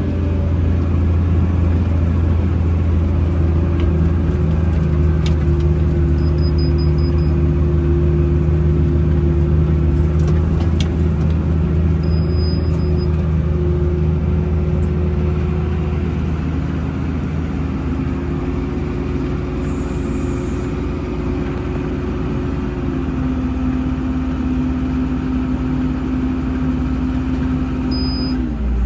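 Tractor engine running steadily under load while pulling a round baler through a straw field, with the baler's rumble underneath. The engine note drops slightly about two-thirds of the way through and again right at the end.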